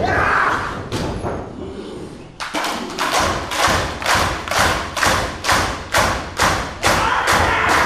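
Thuds from wrestlers grappling in the ring. From about two and a half seconds in comes a steady run of sharp claps, about two a second, echoing in the hall.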